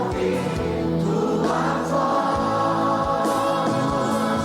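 A congregation and choir singing a slow gospel worship song with band accompaniment, holding a long sung note on the word "Tua".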